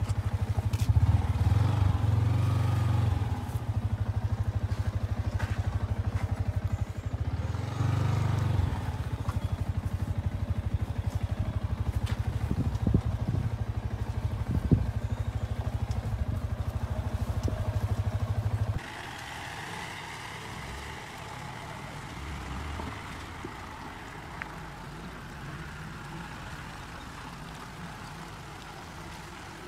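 Motorcycle engine running at low speed in a low gear over a rough, rocky mud track, with a few knocks from the bike on the stones. It cuts off suddenly about two-thirds of the way through and gives way to a much quieter, steady outdoor background.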